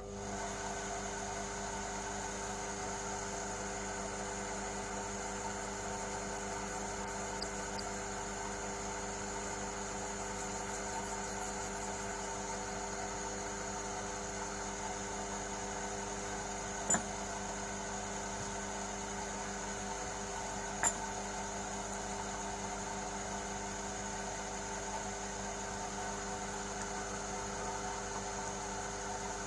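Large Chinese-made lathe running with a steady mechanical hum. Two sharp clicks stand out, about 17 and 21 seconds in.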